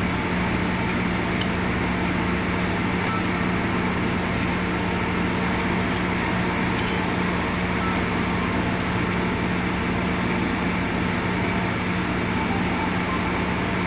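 Steady mechanical hum with a constant low drone and faint light ticks about once a second.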